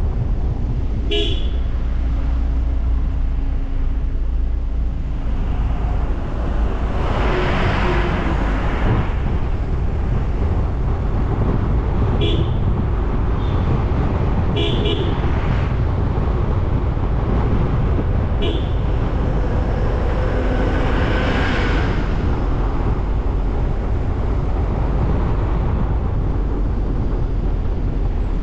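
Steady road and engine noise of a car driving, with heavy low rumble. Several short vehicle horn toots sound over it, and twice the noise swells into a louder rush of passing traffic.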